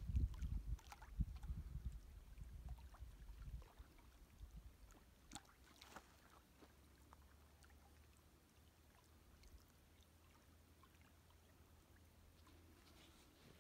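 Wind buffets the phone's microphone with a low, gusty rumble for the first few seconds, then near silence with a few faint clicks.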